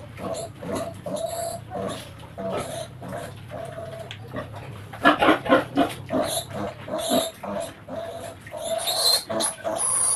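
A piglet grunting and squealing over and over while held upside down for castration: short repeated cries with louder, shrill squeals about halfway through and near the end, the distress calls of a piglet being castrated.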